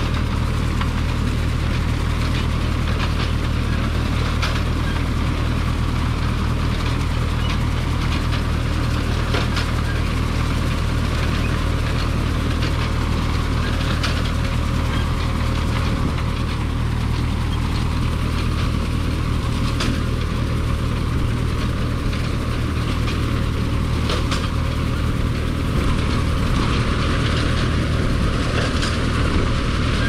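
Tractor engine running steadily as it pulls a McCormick-Deering grain binder cutting wheat, with the binder's mechanism clattering and sharp clacks about every five seconds.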